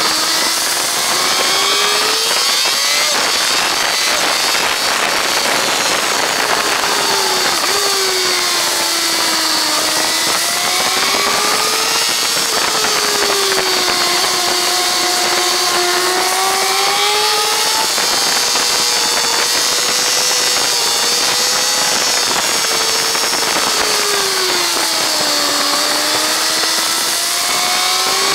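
Kawasaki ZZR1400's inline-four engine heard onboard at track speed, its note rising and falling over and over as the rider accelerates, brakes and changes gear. A heavy rush of wind noise lies over it.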